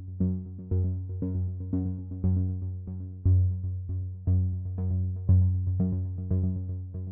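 Background electronic music: synthesizer notes struck about twice a second over a deep bass note repeating about once a second.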